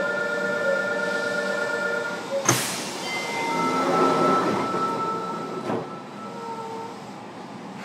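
Fukuoka City Subway 1000N series train running, heard from inside a passenger car. Steady electrical whine tones give way to a sharp clack about two and a half seconds in. After it comes a louder rumbling run with a different, lower set of whine tones that fades toward the end.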